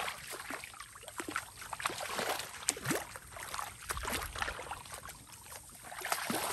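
Feet wading through shallow water over mud, an irregular run of sloshing splashes with each step.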